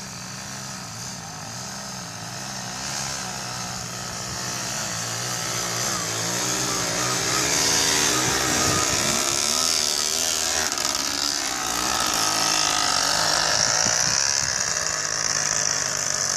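Small motorcycle engine running and revving unevenly, its pitch rising and falling, as it works under a heavy log load. It grows louder a few seconds in.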